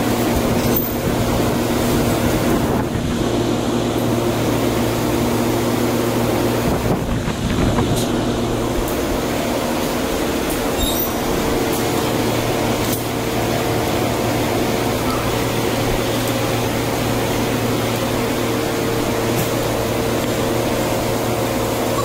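Steady roar of a glassblowing studio's gas-fired glory hole with the hum of its blowers, running without let-up.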